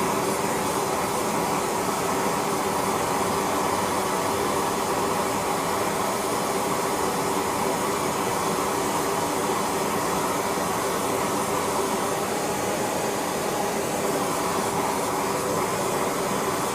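Steady rushing noise of a silver-melting furnace running, with a faint steady hum underneath.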